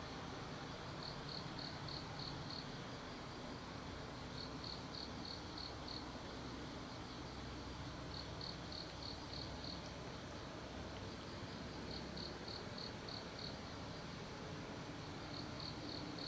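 An insect, cricket-like, chirping in high-pitched groups of about six quick pulses. The groups repeat roughly every three and a half seconds, about five times, over a faint steady background noise.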